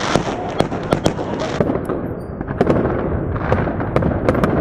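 Fireworks salute going off: a string of sharp bangs, roughly two a second, over a steady crackling hiss.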